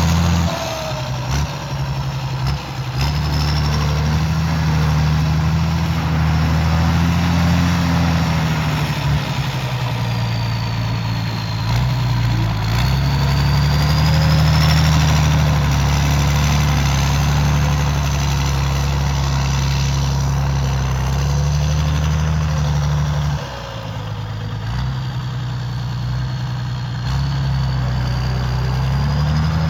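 CBT 1105 tractor's Mercedes-Benz OM 366 six-cylinder diesel engine running at work, its note dropping and recovering under changing load, with brief dips near the start and about two-thirds of the way through. A faint high whine wavers up and down above it.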